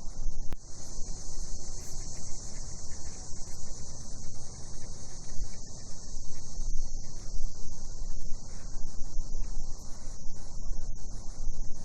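Steady, unbroken high-pitched chorus of night cicadas, over a low, uneven rumble, with a single click about half a second in.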